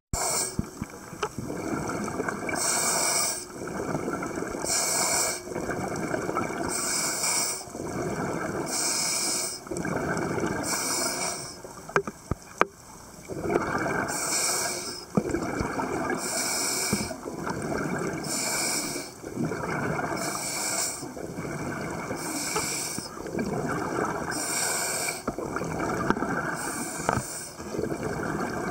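Scuba diver breathing through a regulator: a short inhalation hiss followed by a longer gurgle of exhaled bubbles, about one breath every two seconds. A few sharp clicks come about halfway through.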